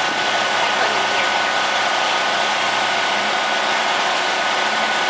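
2002 Ford F350's 7.3 Powerstroke turbo-diesel V8 idling steadily, with a thin steady whine over it.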